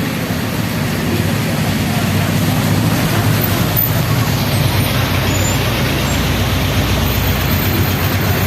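Heavy rain on a busy avenue: a steady hiss of rain and tyres on wet road, with vehicle engines running underneath.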